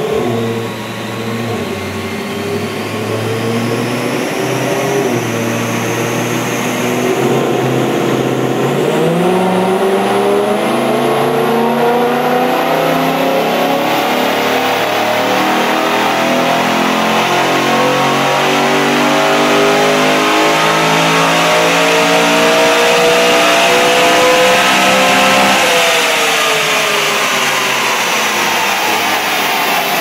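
BMW E92 M3's V8 through an Arqray exhaust, running in gear on a chassis dyno: the revs climb steadily in a long full-throttle pull for about sixteen seconds, then fall away as the throttle is lifted near the end. A high whine rises alongside during the first several seconds.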